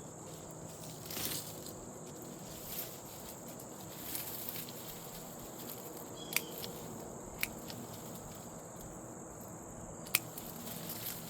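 A steady high insect chorus, with rustling of sweet potato vines and soil being handled and three sharp clicks or snaps about six, seven and ten seconds in.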